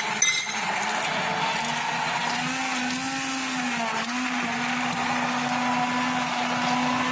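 Electric stick blender running steadily as it blends a liquid mixture of eggs, milk, oil and banana, its motor hum holding a steady pitch with slight wavering. A brief clatter comes a fraction of a second in.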